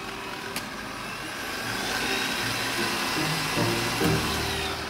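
Vacuum cleaner running steadily, a continuous motor hiss and whine, with light background music underneath.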